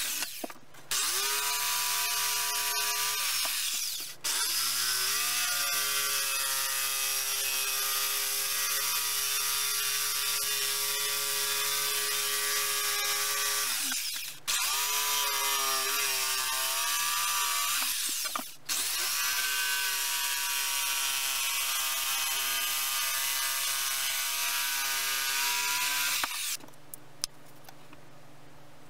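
Corded jigsaw cutting a pine board along a curve, its motor running in several long stretches with brief stops, the pitch dipping and climbing back each time it starts again. It stops for good a couple of seconds before the end, leaving a low hum.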